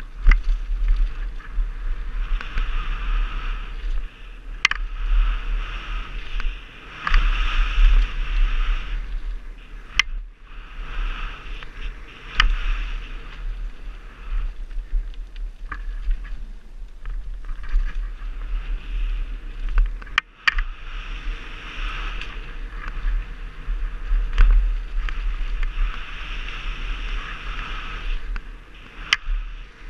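Wind buffeting a helmet-mounted action camera as a mountain bike runs fast down a dirt trail, with the hiss of tyres on dirt and the bike rattling, swelling and easing with speed. Sharp knocks come through now and then, about five times.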